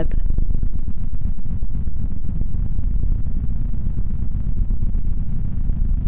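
Pure Data hoover-style synth patch: a dense cluster of sixteen slightly detuned sawtooth oscillators at 220 Hz, soft-clipped by an arctangent distortion, droning steadily at one pitch as a thick buzz. It is dry, without reverb, and has no pitch sweep.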